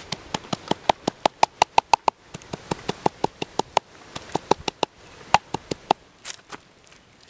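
Wooden pestle pounding red chillies in a clay mortar: quick, even knocks about five a second, each with a short ring. They pause briefly twice and stop about six seconds in.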